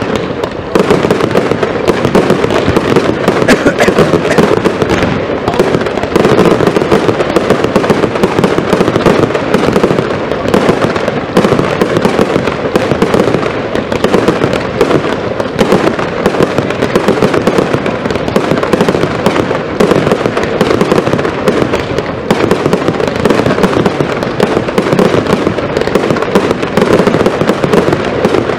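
Consumer firework barrages firing nonstop: a dense, unbroken rattle of launch thumps, bangs and pops from many shots going off in quick succession.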